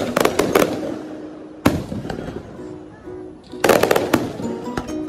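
Aerial fireworks shells bursting with sharp bangs: a quick run of bangs at the start, a single bang before two seconds, and another quick cluster about two-thirds of the way through. Music plays underneath.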